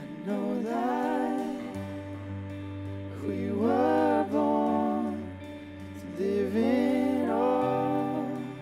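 Slow worship song: a man singing three long phrases over electric guitar, with a low sustained note underneath that comes in about two seconds in and moves up near the end.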